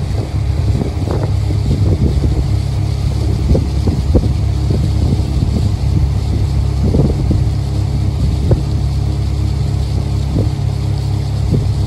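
Motorboat engine running steadily under way at about 14 mph: a continuous low rumble with irregular brief knocks over it.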